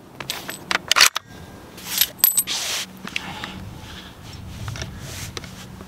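Bolt of a Barrett MK22 (MRAD) bolt-action sniper rifle being worked after a shot: a quick run of sharp metallic clicks and clinks with brief metallic ringing, then it goes quieter.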